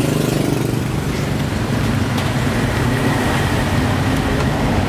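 Road traffic with a motor engine running close by, a steady low engine note over the general traffic noise.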